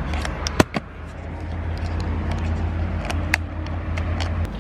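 A steady low rumble, like a motor vehicle running, with several sharp clicks over it, the loudest a little over half a second in; the rumble stops just before the end.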